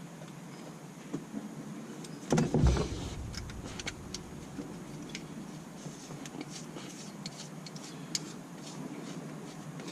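Handling noise: a single dull thump a little over two seconds in, followed by scattered light clicks and taps.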